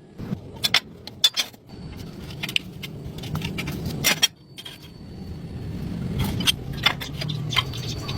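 Irregular metallic clinks and rattles, like metal parts being handled, over a low rumbling hum that builds up about two seconds in.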